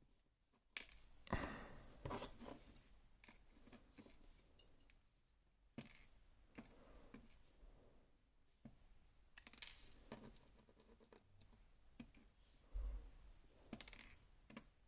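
Faint clicks and light scraping of metal tools working in an M&C Minos lock, irregular, with a few louder clicks about a second in and near the end.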